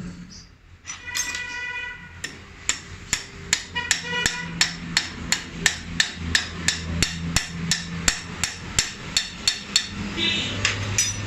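Hammer tapping on metal in a steady run of sharp strikes, about three a second, with a metallic ring about a second in and again near the end.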